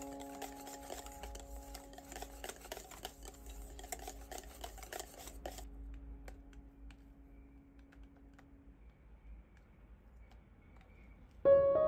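Wire balloon whisk beating a thick strained-yogurt and cream mixture in a stainless steel bowl: rapid clicking and scraping of the wires against the metal for about five seconds, then only occasional light taps. A held music note fades under it, and music starts again near the end.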